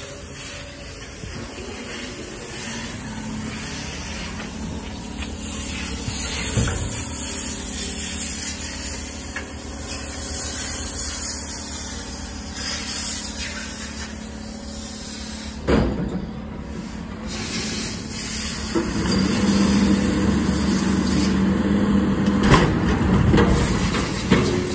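Natural-gas-powered automated side-loader garbage truck running. About three-quarters of the way through its hydraulics grow louder as the arm lifts a cart, with a few sharp knocks.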